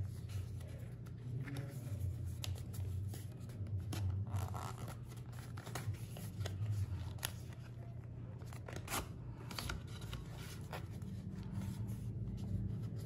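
Cardboard earbud box being handled and opened by hand: scattered rubs, scrapes and light clicks of paper packaging, over a steady low hum.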